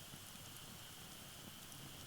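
Firewood fire burning quietly in a fire pit: a low, soft rumble of flame with a few faint, sparse crackles, and a faint steady high hiss under it.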